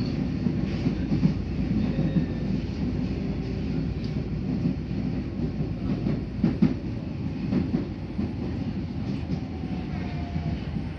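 Nagoya Municipal Subway N1000-series train running: a steady low rumble of wheels on rail, with a couple of sharp clicks about six seconds in and a faint falling whine near the end.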